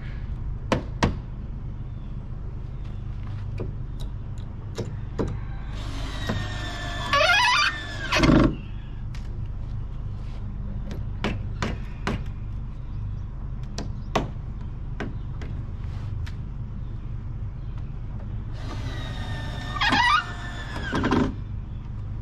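Scattered light knocks and taps from work on the boards of a wooden frame, over a steady low hum. Twice, a few seconds each, a louder whining sound falls in pitch.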